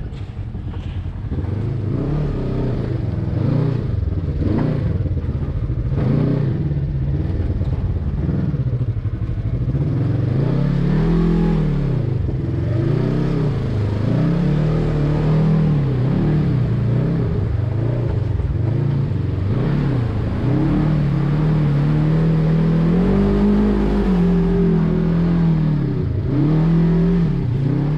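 Side-by-side buggy (UTV) engine running under load on the onboard microphone, its pitch rising and falling over and over as the throttle is worked through mud and water, with clattering from the vehicle body.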